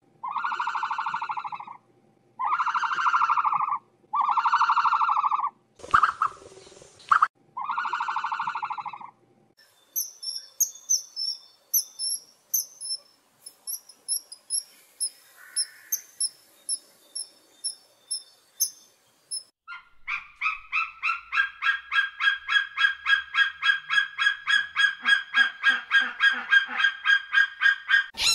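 A sequence of bird calls. First five calls of about a second each, with a short sharp noise between the fourth and fifth. Then swallows twittering in high chirps, and near the end a fast run of short repeated calls, about four a second, growing louder.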